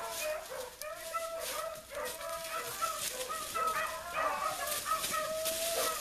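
Several beagles baying in overlapping calls at different pitches, a pack running a swamp rabbit's trail.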